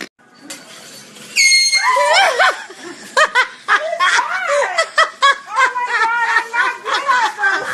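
A short blast of an air horn about a second and a half in, then loud, high-pitched laughter in quick bursts that runs on for several seconds.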